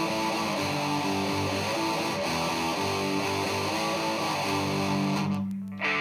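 Electric guitar played through an Exar Super Fuzz SF02 fuzz pedal: a fuzzy, distorted riff of notes changing about every half second. Near the end one low note rings on while the higher fuzz drops out briefly.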